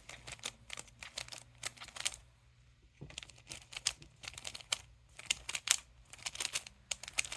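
A 3x3 Rubik's cube being turned by hand through a repeated righty-lefty sequence: quick runs of plastic clicks as the layers snap round, with a short pause about two and a half seconds in.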